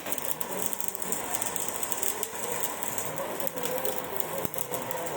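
Electric arc welding crackling steadily, a dense sizzle of rapid clicks, with one sharper click about four and a half seconds in.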